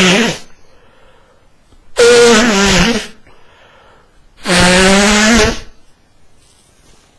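A man blowing his nose hard through a stuffy nose, clogged from a heavy cold: three loud, honking blasts of about a second each. The first is just ending at the start, and the others come about two seconds in and about four and a half seconds in.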